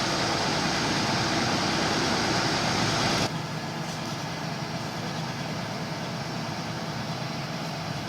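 Backhoe engine running steadily; the sound drops suddenly to a lower level about three seconds in.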